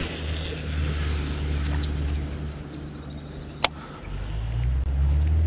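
Low drone of a motor vehicle's engine going by, easing off a little around the middle and swelling again in the last second and a half. A single sharp click sounds about three and a half seconds in.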